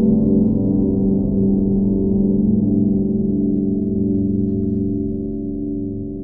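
Dark, sustained gong-like drone of a film score: many low tones ringing on together, with no beat, beginning to fade out near the end.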